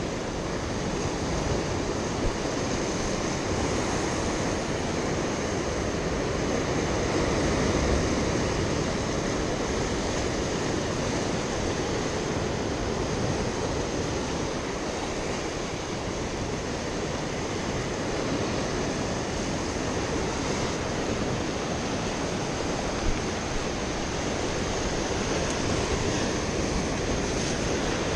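Steady rush of ocean surf mixed with wind on the microphone, with a couple of brief knocks.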